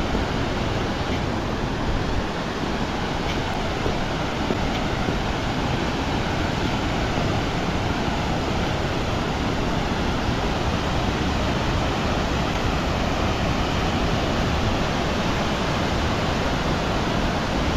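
Hidden Falls on Cascade Creek: a steady, unbroken rush of falling and tumbling water.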